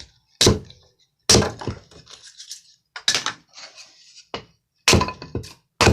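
Freshly sharpened hatchet chopping into kindling wood: a series of sharp, separate chops, roughly one a second.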